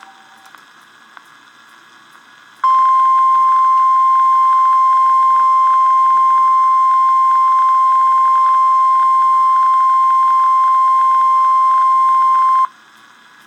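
NOAA Weather Radio 1050 Hz warning alarm tone: a single steady high beep held for about ten seconds, starting a few seconds in and cutting off sharply near the end. It is the attention signal that comes before the spoken severe thunderstorm watch bulletin.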